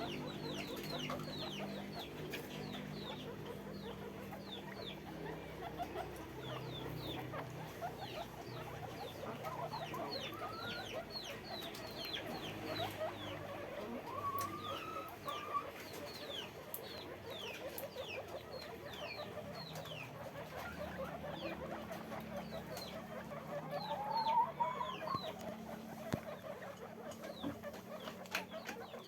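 A group of guinea pigs squeaking and chirping: many short, high calls falling in pitch, overlapping, with a few longer rising squeals now and then over a low hum.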